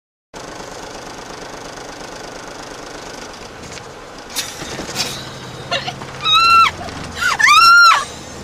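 Steady engine and road noise inside a moving car, with a couple of short clicks, then two loud, high-pitched squeals that rise and fall in pitch, the second longer, from women in the car breaking into laughter.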